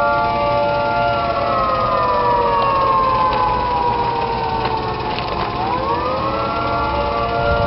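Federal Signal Thunderbolt 1003 outdoor warning siren sounding a steady chord. About a second in, the pitch slides slowly down to a low tone. Around five and a half seconds it swings quickly back up to the steady high chord: its steady high-low signal.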